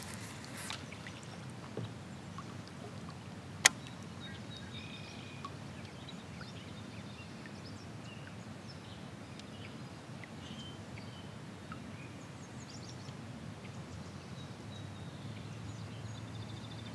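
Quiet outdoor river ambience heard from a kayak: a low, steady background hiss, broken by one sharp click a little under four seconds in and a few faint, short high notes scattered through the middle.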